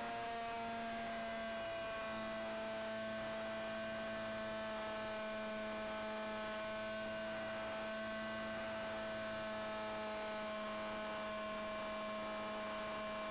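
An RC airplane's 2200 kV brushless electric motor and propeller whining at steady throttle in flight, one even pitch that sags slightly in the first second or so and then holds.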